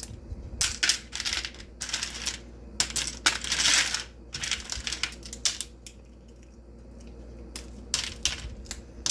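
Pieces of hard rock candy clinking and rattling against one another and a dish in repeated short, irregular bursts, with a quieter stretch partway through.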